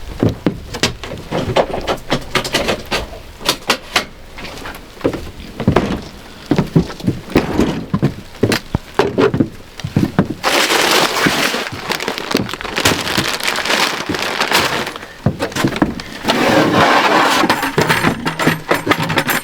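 Footsteps crunching and cracking over ice-glazed ground in freezing rain, many irregular sharp cracks. About halfway through, a steady rushing noise takes over for several seconds.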